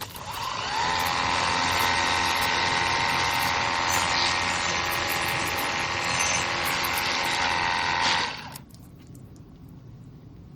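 Cordless battery pressure washer (Ontel Turbo Jet HydroX5 Pro) running. Its motor whines up to speed over about a second, then runs steadily over a hiss, and cuts off suddenly after about eight seconds.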